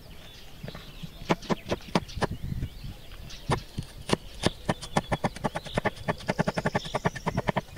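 A blade chopping onion on a wooden cutting board: a few slow strikes, then about halfway a fast, even run of about eight strikes a second. Birds chirp faintly in the background.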